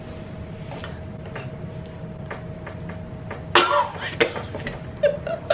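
A woman's strained, breathy vocal outburst about three and a half seconds in, with a second one just after, as she wrestles with the pumpkin's lid, after a few light clicks of hands on the pumpkin. Short vocal sounds follow near the end.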